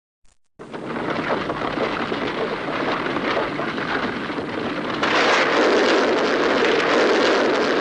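Kaiju sound effect: a dense, noisy rumble with no pitch to it, like an eruption or collapse. It begins just under a second in and grows louder about five seconds in.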